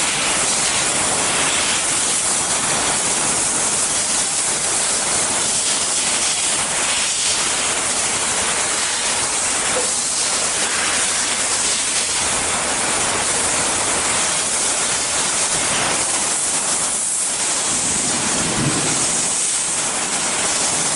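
Steady, even hiss of machinery running in a workshop, with no rhythm or change in level.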